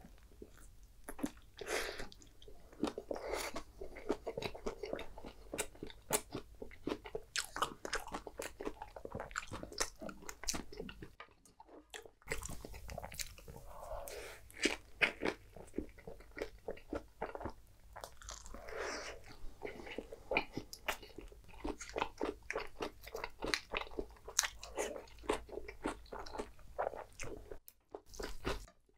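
Close-miked eating of a soft flour-tortilla taco: repeated bites and chewing with crisp crunches and wet mouth clicks, broken by a brief pause a little after eleven seconds in.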